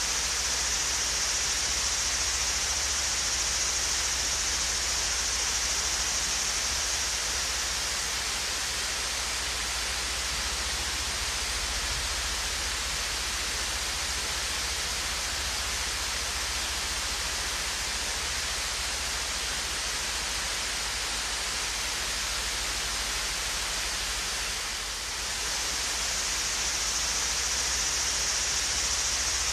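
Swayze Falls, a gentle waterfall, rushing steadily: an even, bright hiss of falling water with no breaks, dipping slightly for a moment about 25 seconds in.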